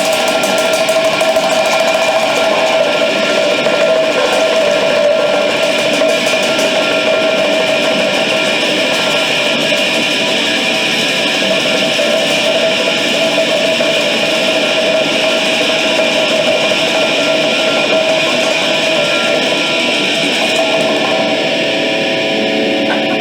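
Electric guitars playing a loud, steady wall of distorted noise with several long held tones and no clear beat.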